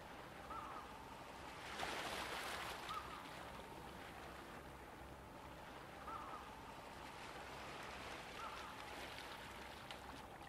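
Calm seashore ambience: a soft steady wash of sea water, swelling briefly about two seconds in, with four short bird calls spread through it.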